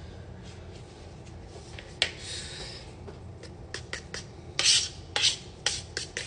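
Scraping and rubbing strokes mixed with sharp clicks, with one scrape about two seconds in and a run of louder strokes in the second half.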